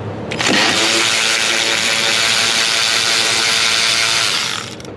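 A motor-driven machine or power tool spins up, runs steadily with a whine and a strong hiss for about four seconds, then stops.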